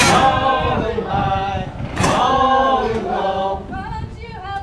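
A group of people singing a work song unaccompanied, loud phrases starting sharply about every two seconds. The song keeps time for the crew hauling together on the halyard to hoist a square sail.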